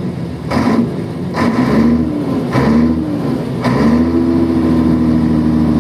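Diesel engine of a 1975 Scania truck, freshly rebuilt with new cylinder heads, revved in several short blips and then held at a steady raised speed from about four seconds in.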